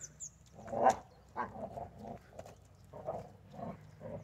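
Rottweiler puppy making a string of short vocal sounds, the loudest about a second in, with quieter ones following.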